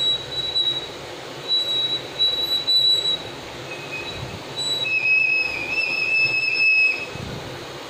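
Besan sev dough strands frying in hot oil with a steady sizzle, while the brass sev press squeals in several high-pitched squeaks as it is worked, the longest and slightly lower one from about five to seven seconds in.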